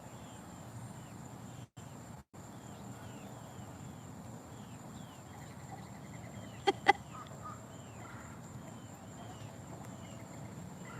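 Peachicks (baby peafowl) peeping softly, over and over, in small high chirps. About seven seconds in, two short, loud, sharp sounds come in quick succession.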